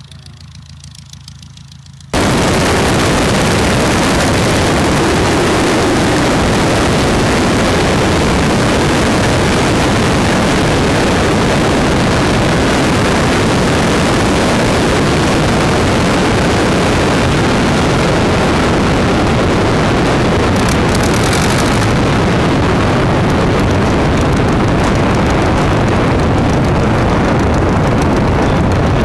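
Boeing F4B-2 replica biplane's engine running, heard as a quiet, steady hum at first. About two seconds in it jumps to a loud, harsh, even roar of engine and propeller noise picked up by a camera on the wing as the plane moves over the grass.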